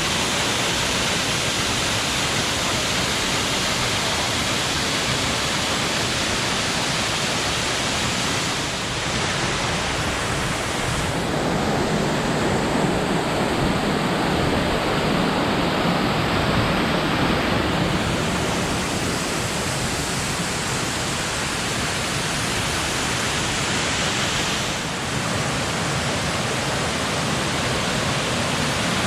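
McLean Falls pouring, a loud, steady rush of falling water. For several seconds in the middle it turns lower and fuller.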